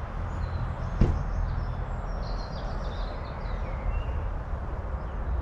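Steady background noise with a low rumble, one sharp knock about a second in, and faint short high chirps in the middle.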